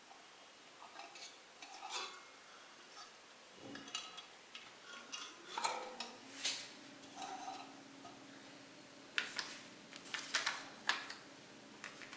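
Metal clinks and clatters from a gas sandwich toaster being handled, its metal plates and hinged handles knocking together in irregular bursts.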